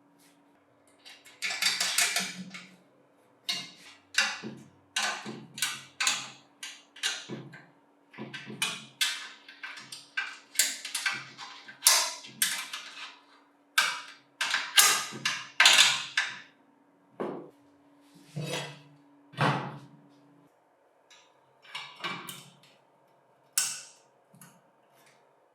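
Irregular knocks and clinks of metal parts and tools being handled and fitted together while the bench grinder's electric motor is assembled. A faint steady hum stops about twenty seconds in.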